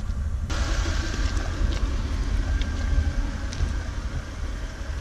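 Air hissing steadily out of a large off-road truck tire through a valve-stem tire deflator as the tire is aired down, starting suddenly about half a second in, over a low rumble.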